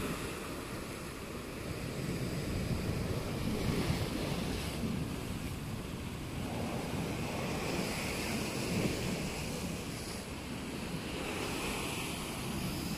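Sea waves breaking and washing against a rocky shore, a steady rush that swells and eases every few seconds, with wind buffeting the microphone.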